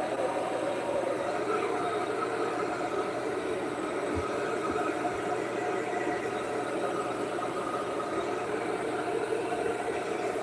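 Handheld hair dryer running steadily while blowing on wet hair.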